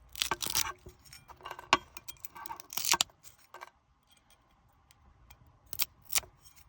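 Close-up handling noise: irregular crisp clicks, taps and crinkling rustles, with a sharp click about two seconds in and a quieter stretch in the middle.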